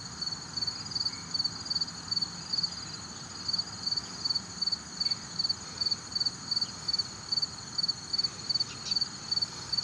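Insect chirping outdoors: a high-pitched chirp repeating steadily about two to three times a second.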